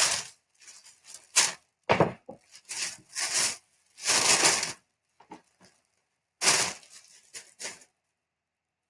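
Sheets of tissue paper rustling and crinkling as they are handled and pulled apart, in a string of short bursts. The sound falls quiet near the end.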